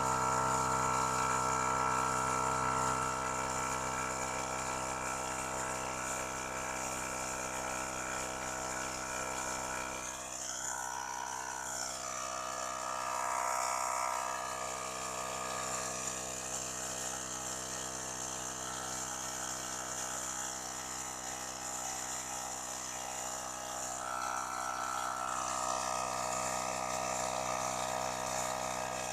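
Nakasaki NK1212 mini air compressor running steadily with a continuous motor hum. Its tone changes a little about ten seconds in.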